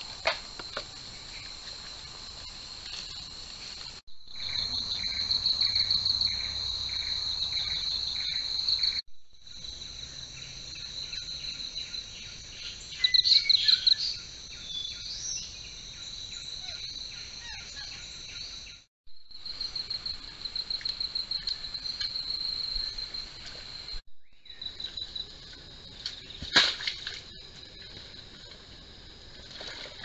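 Rainforest insects buzzing and trilling at a steady high pitch, with pulsing stretches. The sound cuts out briefly four times. There are a few sharp clicks, and a short rising call about halfway through.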